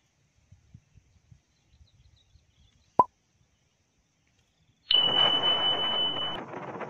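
A subscribe-button sound effect, a sharp click with a short ding, about 3 seconds in. Near the end, loud wind buffeting the microphone on a moving ride, with a steady high tone for about a second and a half.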